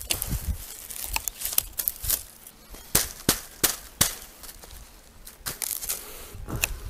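Dry reed thatch being worked by hand on a roof: a run of sharp, irregular snaps and crackles from the reed stems, the loudest clustered about three to four seconds in, over a low rumble.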